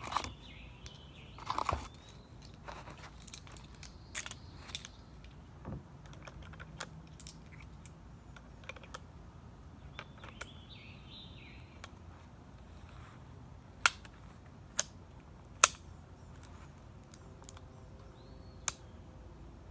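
Smith & Wesson Model 58 .41 Magnum revolver being handled: scattered light metallic clicks and clinks, with three sharper clicks in the second half. No shots are fired.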